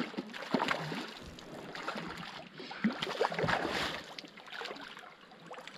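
Irregular splashing of water with scattered clicks and knocks, typical of a hooked fish being played close in.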